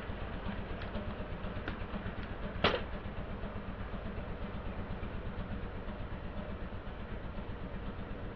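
Car engine idling as the tyre rolls slowly over a plastic bead abacus on asphalt, with a few faint plastic clicks and one sharp clack a little under three seconds in.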